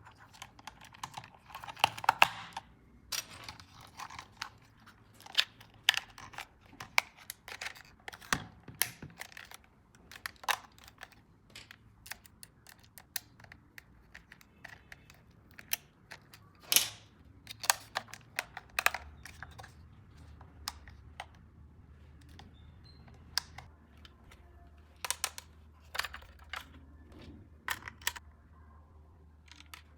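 Irregular clicks and taps of hard plastic being handled: toy car parts and packaging knocked and clicked together. A faint low hum comes in a little past the midpoint.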